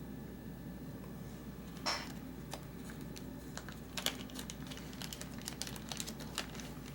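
Small hard items clicking and tapping as they are handled, with a short rustle about two seconds in and a run of light clicks through the second half.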